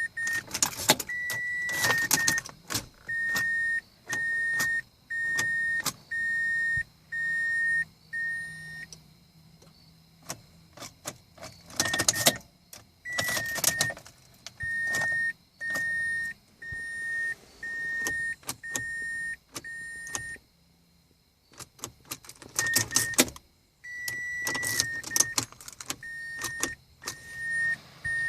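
A 2005 Mazda 6's warning chime beeps steadily, about one and a half high beeps a second, in runs that stop and start again. Three times, keys rattle and click in the ignition as the car fails to start.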